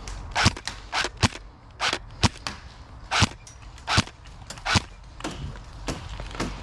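Airsoft guns firing single shots: about a dozen sharp, irregularly spaced cracks, some loud and close, others fainter.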